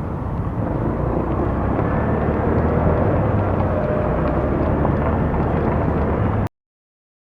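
Honda Click automatic scooter on the move: steady engine drone mixed with wind and road noise. It cuts off abruptly to silence about six and a half seconds in.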